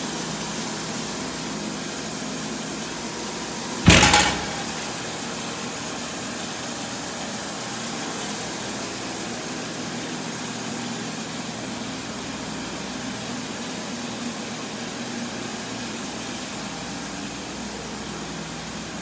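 Steady hum of running machinery, with a single sharp knock about four seconds in.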